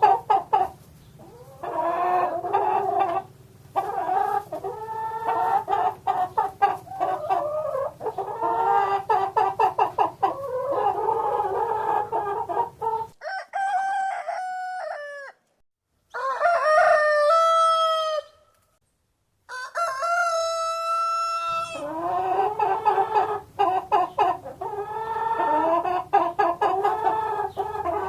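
Chickens clucking and cackling in quick repeated calls. Partway through, the background cuts out and a rooster crows three times, each crow about two seconds long. Then the hens' clucking starts again.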